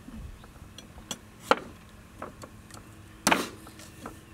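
Scattered sharp knocks of a cleaver striking a fresh bamboo shoot on a wooden chopping board: a few light taps, then a louder knock about three seconds in.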